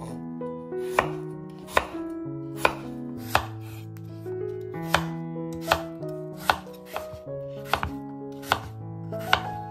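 A large kitchen knife chopping apple pieces on a wooden cutting board: about a dozen sharp knocks of the blade hitting the board, roughly one every 0.7 s, over soft piano music.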